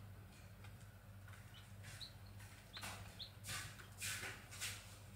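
Grey junglefowl chicks peeping a few times, faint short high notes. Several short rustling noises, louder than the peeps, come about three to five seconds in.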